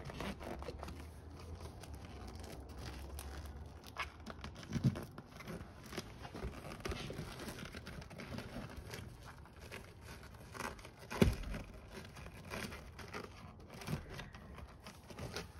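A croc-textured seat cover rustling and crinkling as hands stretch it and tuck its edges into the side of a truck seat, with scattered small knocks. A sharper knock comes about eleven seconds in.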